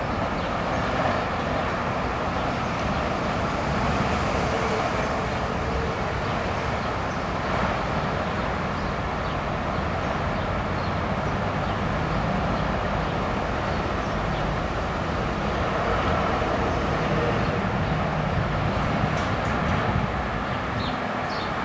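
Two coupled D1 diesel multiple units running past: steady rolling noise of the carriages on the rails, with a diesel engine's drone from the power car.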